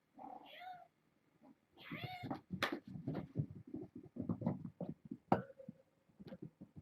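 A kitten meows twice: a short call right at the start and a second one about two seconds in. A run of quick, irregular clicks and scratches follows.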